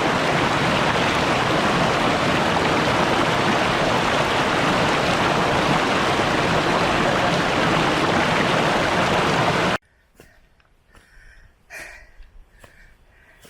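Loud, steady rush of water from a forest stream. It cuts off abruptly about ten seconds in, leaving near quiet with faint scattered ticks and rustles.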